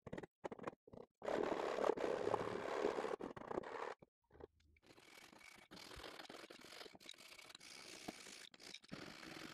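A metal hand file rasping on a carved piece of wood, first in short strokes and then in a louder continuous run. After a break about four seconds in, softer back-and-forth rubbing follows as sandpaper fixed in a hacksaw frame sands a small wooden part.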